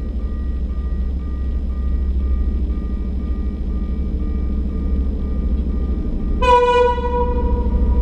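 Level-crossing warning signal beeping steadily, about three short beeps a second, over a low engine rumble. About six and a half seconds in, a loud single-note horn sounds for about a second.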